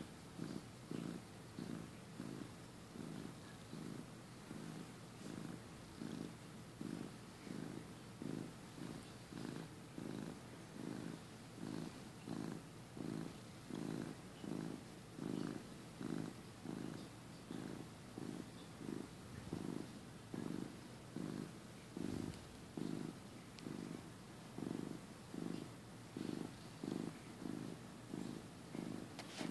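Flame point Siamese cat purring steadily close up, the purr swelling and fading with each breath about once a second.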